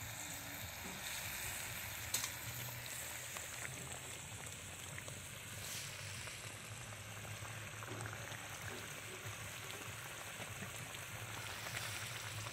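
Mice frying in oil in a wok: a steady sizzle, with a single light tap about two seconds in.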